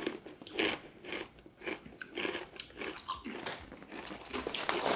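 Walkers MAX ridged potato crisps being bitten and chewed: a run of irregular crunches.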